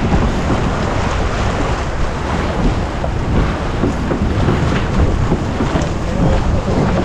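Wind buffeting a deck-mounted camera's microphone as a steady, heavy low rumble, mixed with water rushing along the hull of a Farr 280 sportsboat sailing downwind under spinnaker at about 8 knots.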